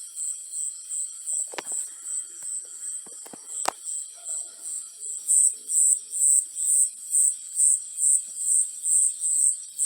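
A cricket chirping in a steady high-pitched rhythm, about two chirps a second, louder from about halfway through. Two short sharp clicks sound in the first half.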